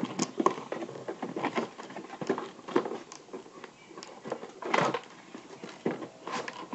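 Plastic toy packaging being handled, with irregular crinkles and clicks and a louder rustle about five seconds in, as a small plastic toy cup is worked out of its packaging.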